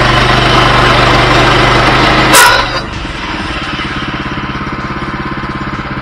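Woodland Mills HM122 bandsaw mill's 7 hp engine running fast, driving the band blade. About two and a half seconds in, a brief harsh burst as the blade strikes the log guide. The engine then drops to a lower, evenly pulsing idle.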